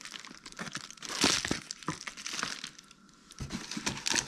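Packaging crinkling and rustling as reel parts are unwrapped by hand, in irregular crackles that are loudest about a second in and pause briefly near three seconds.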